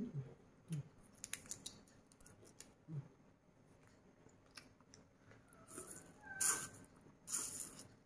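Close-miked eating sounds: a few sharp clicks and crackles as a cooked prawn is handled and bitten, then two loud, hissy mouth noises near the end as it is eaten with spicy sauce.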